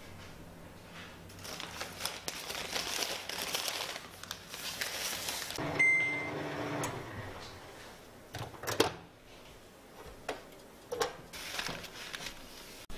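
Newspaper crinkling and rustling as it is folded around used coffee grounds, then a brief electronic beep and several sharp clicks from the microwave oven as it is loaded and its door handled.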